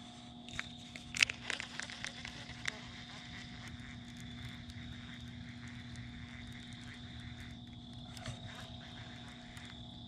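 A few sharp clicks and knocks in the first three seconds as a rod with a baitcasting reel is picked up and handled for a cast, then only a faint steady background while the lure is retrieved.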